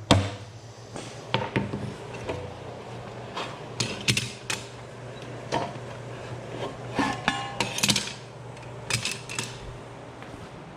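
Hand tools working on car body metal: a hard knock at the start, then scattered lighter knocks and metallic clanks, one cluster ringing briefly. A steady low hum runs underneath and stops near the end.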